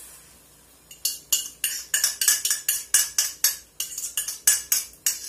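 A metal fork scraping and tapping against a glass bowl in a rapid run of ringing clinks, several a second, starting about a second in, as the last of the beaten egg is pushed out into the frying pan.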